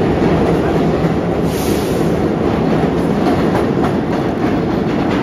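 R46 subway train pulling out of the station and running away down the tunnel: a loud, steady rumble of wheels on rail with clicking over the rail joints and a short hiss about a second and a half in.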